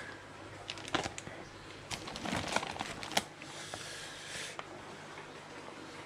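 Plastic fish bags being handled: crinkling and rustling with scattered clicks and taps, then a short steady hiss lasting about a second, starting about three seconds in.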